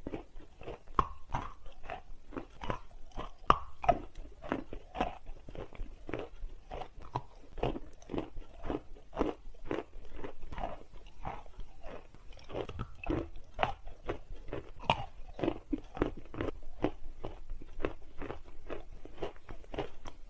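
A piece of chalk being crunched and chewed in the mouth: a steady chewing rhythm of about two to three crunches a second.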